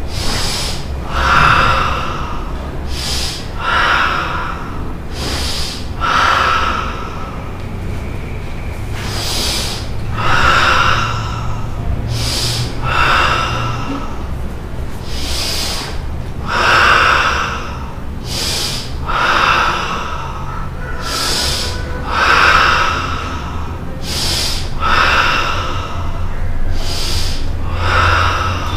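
A karateka's forceful Sanchin-kata breathing: loud, deliberate breaths in and out, the kata's controlled inhale-exhale technique. A louder, longer rush of breath comes about every two to three seconds, with shorter, sharper breaths between.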